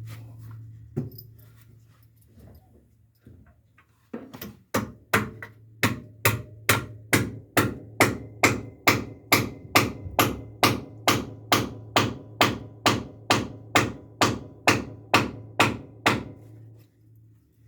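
Hammer driving nails into timber: a few light taps, then from about four seconds in a steady run of strikes, a little over two a second, that stops about a second before the end.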